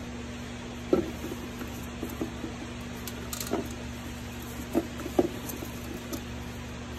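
Scattered light clicks and knocks of small parts being handled, five or six in all, over a steady low hum.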